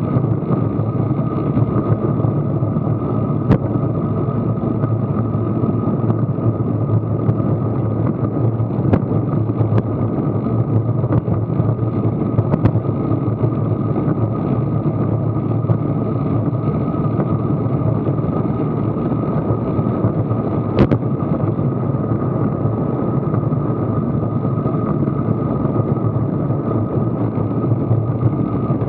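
Steady rush of wind and road noise over an action camera's microphone on a bicycle rolling at about 15 mph. There is a sharp click about 21 seconds in.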